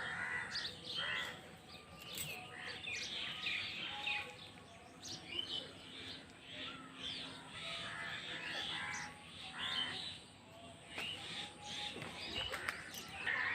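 Morning village birdsong: many birds chirping and calling over one another in short, irregular notes.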